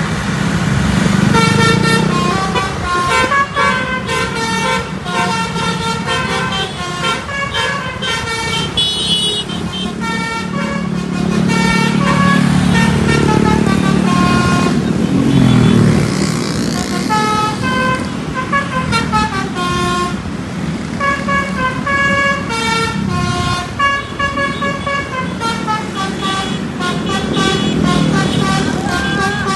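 Bus 'basuri' musical horn playing quick melodic runs of short notes, one tune after another. A low drone runs underneath and slides down in pitch about fifteen seconds in.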